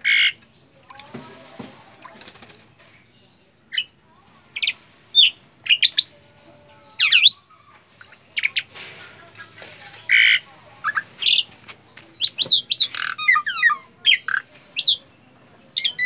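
Asian pied starling (jalak suren) chattering: a string of short, loud whistles and calls, some gliding up or down in pitch, coming thick and fast in a rapid run about twelve to fifteen seconds in.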